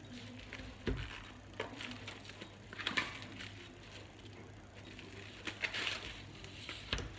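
Things being handled and set down on a kitchen counter: several light knocks spread through the stretch, with rustling as if from packaging around the middle and again near the end.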